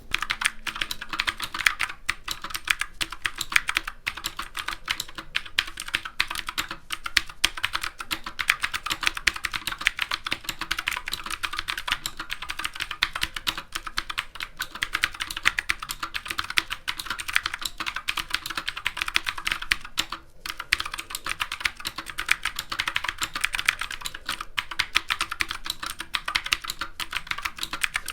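Keychron K6 mechanical keyboard with clicky blue switches, typed on fast and continuously, a dense run of key clicks with one short pause about two-thirds of the way through.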